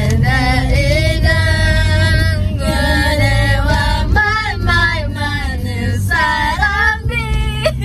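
Several young women singing along to a song playing on the car stereo, with the song's bass line running steadily underneath.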